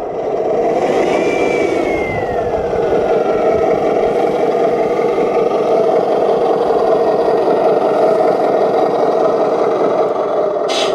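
Radio-controlled model truck running: a steady motor hum, with a whine that falls in pitch between about one and three seconds in.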